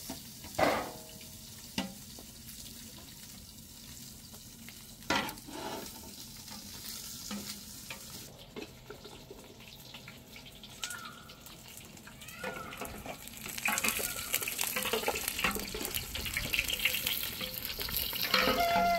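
Meat frying in a pot over a charcoal fire, sizzling and crackling, much louder and denser over the last six seconds or so. A couple of sharp knocks in the first six seconds.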